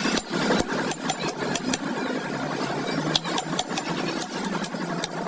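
A series of sharp clicks or taps at uneven intervals, several a second, over a steady mechanical hum.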